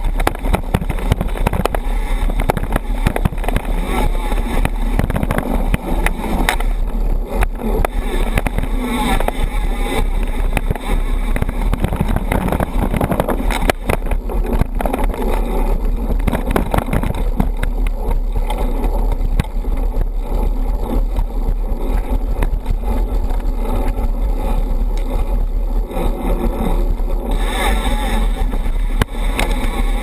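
Mountain bike riding fast down a dirt singletrack: a steady low wind rumble on the low-mounted GoPro's microphone, with the knobby tyres rolling over the trail and many small rattles and knocks as the bike goes over bumps.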